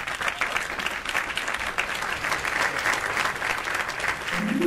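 Audience applauding, a dense steady clapping; plucked-string music comes in just at the end.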